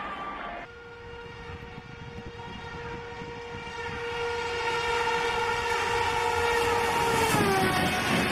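Indian Railways train horn held in one long steady blast as the train approaches, growing louder, its pitch dropping about seven seconds in as the train passes. The rumble of the passing coaches starts right after.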